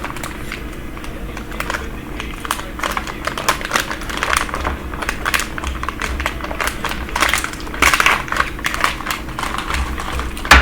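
Close-up chewing of crunchy snack food: a run of irregular crisp crunches and clicks, over a steady low hum.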